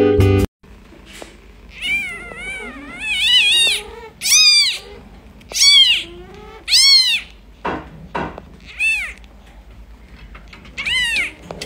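Newborn kitten mewing: a string of about eight high, thin cries, each rising and then falling in pitch.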